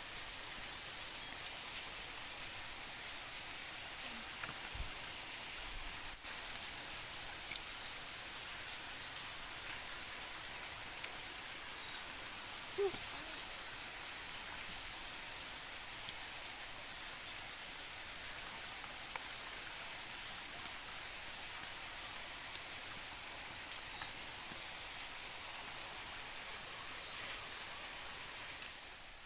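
Steady high-pitched chorus of insects shrilling in the forest, unbroken throughout.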